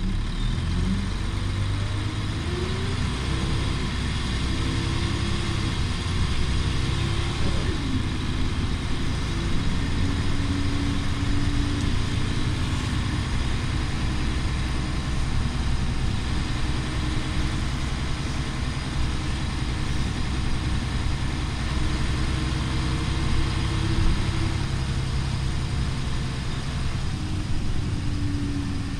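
Volvo B10BLE bus's rear-mounted diesel engine pulling away, its pitch climbing through several gear changes over the first eight seconds or so, then running steadily at cruising speed. Heard from inside the saloon, with low road rumble throughout.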